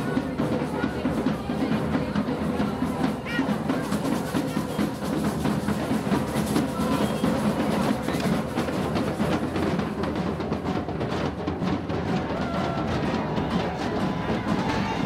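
Procession music: drums beating steadily with a high pipe playing over them.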